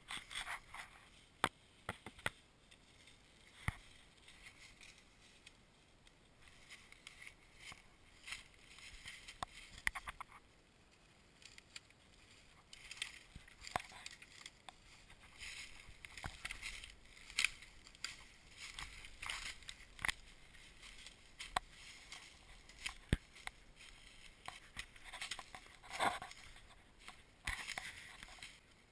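Dry leaf litter and twigs rustling and crunching under someone moving through the woods, with scattered sharp snaps and clicks.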